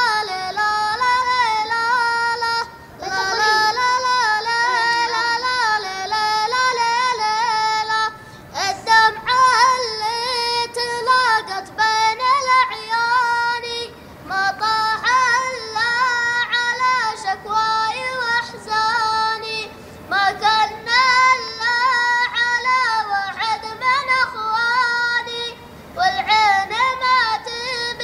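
A child's high voice chanting an Arabic poem to a melody, unaccompanied, in sung phrases with short breaths between them about every five to six seconds.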